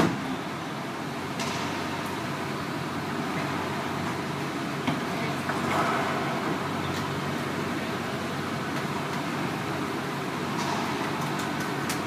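Racquetball rally: sharp cracks of the ball off racquets and the court walls, echoing in the enclosed court, the loudest right at the start on the serve, then scattered hits and a quick cluster of them near the end, over a steady background hum.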